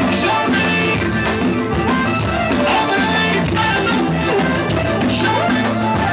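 Raï music from a band, with instruments and some singing, at a steady loud level.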